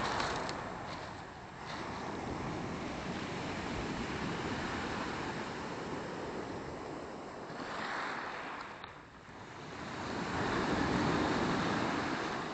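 Black Sea waves washing onto the shore, swelling louder twice, with wind buffeting the microphone.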